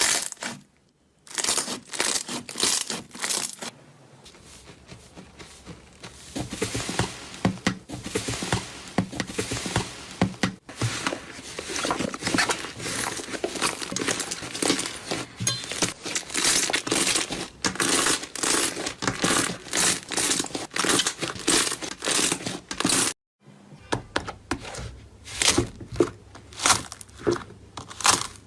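Slime being squeezed and pressed by hand, giving dense runs of crackling, popping clicks. The sound breaks off briefly twice, about a second in and again later on.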